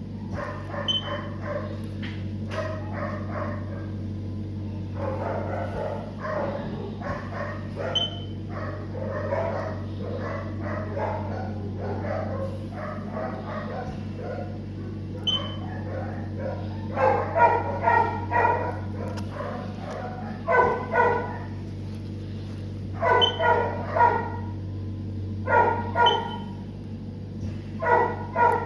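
A dog barking and yipping in quick runs of short barks, the runs louder and more spaced out in the second half, over a steady low hum.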